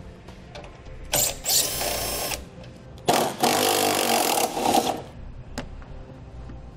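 Cordless drill/driver running in two bursts, one of about a second and one of about two seconds, backing out the 7 mm fasteners that hold the headlight.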